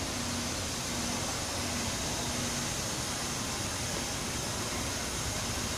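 CNC foam cutting machine running: a steady hiss, with short low hums that come and go.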